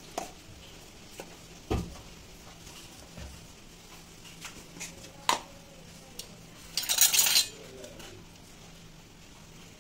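Kitchen utensils clinking and knocking against a stainless steel plate in scattered single strikes, with a heavier thump just under two seconds in and a loud, noisy rattle lasting under a second about seven seconds in.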